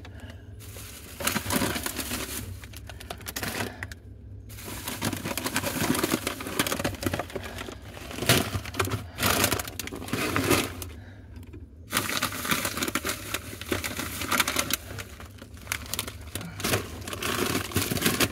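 Plastic snack bags crinkling and rustling as they are handled and packed into a box, with two short pauses.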